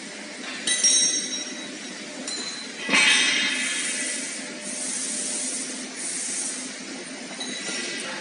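Wire mesh panel welding machine at work: two sharp metal clanks with ringing wire, about a second and three seconds in, followed by a few short hisses about a second apart over a steady machine background.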